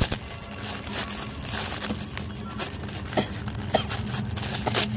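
Clear plastic bag crinkling and crackling in the hands as a toy tractor is unwrapped from it: irregular crackles, with a few sharper ones in the second half.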